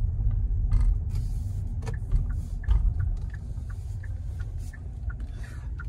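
Low, steady rumble of a car driving, heard from inside the cabin, with a few faint scattered clicks.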